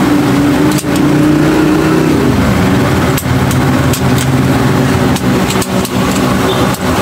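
Engine hum running steadily, its pitch shifting and dropping about two seconds in, with a few sharp clicks as the airgun's metal parts are handled.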